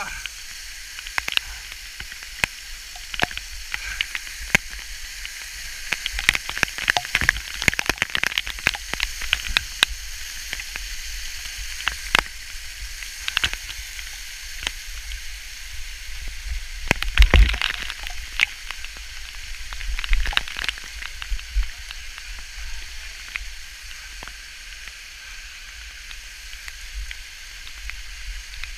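Waterfall water splashing onto the camera: a steady hiss full of sharp droplet taps and crackles, with a heavier bump and splash a little past halfway.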